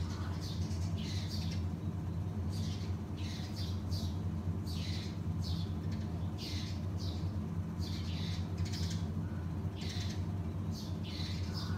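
A flock of Eurasian tree sparrows chirping: short, falling chirps come in clusters of a few a second throughout, over a steady low hum.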